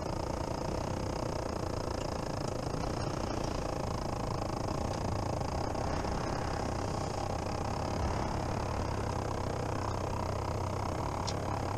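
Caterpillar 3116 six-cylinder turbo-diesel of an LMTV military truck running steadily while the truck creeps forward at low speed.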